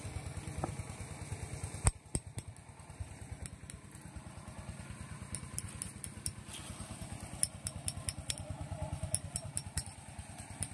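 An engine idling steadily nearby. A sharp knock comes about two seconds in, and light clicks and rattles follow in the second half.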